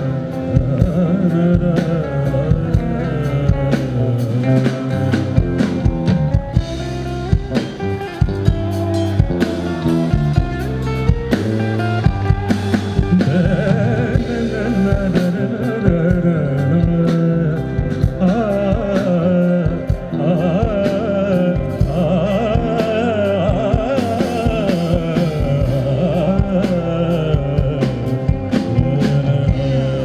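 Live band music of a Kannada folk song arranged as fusion rock: singing over guitar with a steady drum beat.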